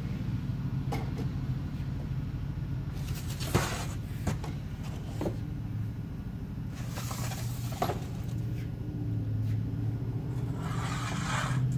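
Chainsaws being lifted and slid off a workbench: several sharp knocks and clunks, and longer scraping about seven seconds in and again near the end, over a steady low hum.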